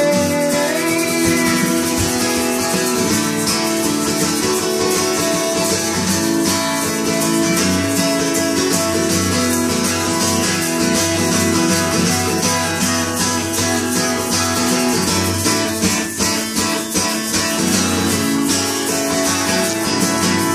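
Music: an instrumental stretch of a song, led by strummed acoustic guitar with no singing.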